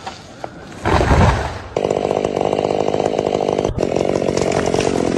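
A heavy low rumbling thump about a second in, then a chainsaw running steadily at high revs, with a brief break near the middle.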